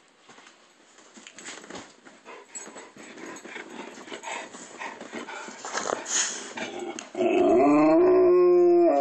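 Several seconds of rustling and scuffling, then about seven seconds in a golden retriever lets out a long, loud howl held on one steady pitch.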